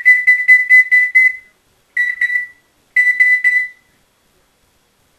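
Congo African grey parrot mimicking an electronic beeping alarm: three bursts of rapid, high-pitched beeps at about five a second, the first about a second and a half long and the next two shorter.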